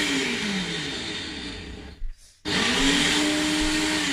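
Countertop blender running loud while blending frozen beetroot. Its motor pitch rises, holds and then sags; it cuts out briefly about two seconds in and starts again.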